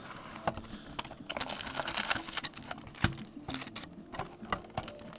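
Foil-wrapped trading card packs and their cardboard box being handled: irregular crinkling with light clicks and taps, and one sharper knock about three seconds in.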